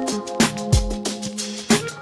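Background music with a steady beat: kick drum and sharp percussion under held synth or instrument notes.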